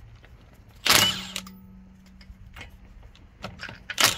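Cordless Milwaukee M18 Fuel impact wrench firing in a short burst about a second in and again near the end, loosening a wheel's lug nut.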